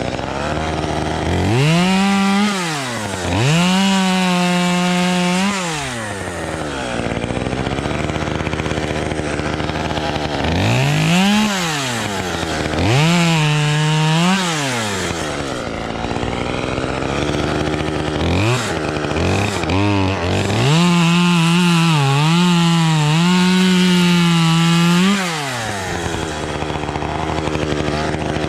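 Two-stroke chainsaw revved in repeated bursts from idle to full throttle and back, cutting tree branches. During the longest burst, about twenty seconds in, the pitch sags and recovers several times as the chain bites into the wood.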